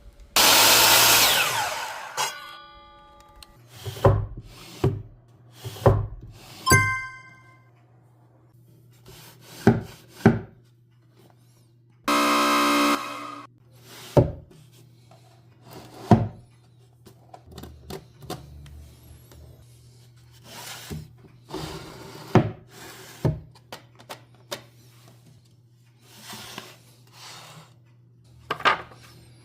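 Woodworking sounds: a power tool runs briefly near the start, then come scattered knocks and taps of wood being handled and fitted, over a low steady hum.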